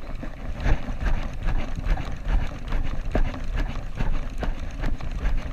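Wind buffeting the microphone and small waves lapping and slapping against a jet ski's hull, with a steady low rumble and many irregular knocks and clicks.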